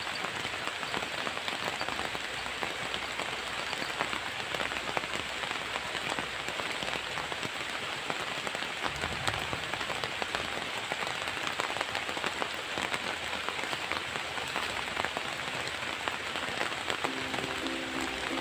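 Steady rain falling: a dense, even patter of many drops.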